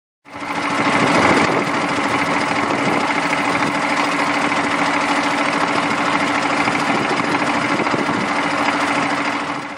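Dredger engine running steadily at constant speed, a loud even machine noise with a steady hum through it. It starts suddenly and cuts off suddenly near the end.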